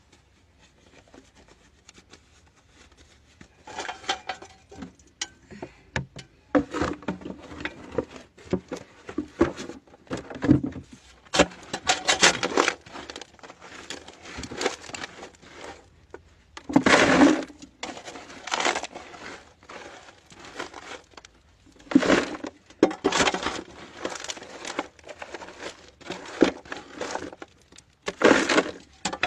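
Soil and rubble being scraped and crunched as a pit is dug out by hand, in irregular bursts that start a few seconds in, the loudest ones about halfway through and near the end.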